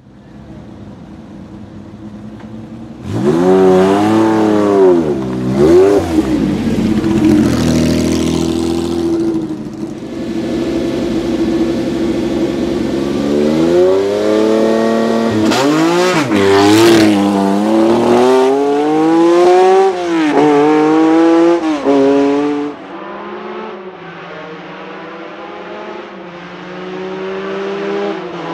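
Lancia Stratos HF Group 4's mid-mounted Ferrari Dino V6 engine idling quietly, then revved hard in sharp repeated blips with a fast idle between. About 22 seconds in it turns quieter and more distant, pulling steadily as the car climbs a road.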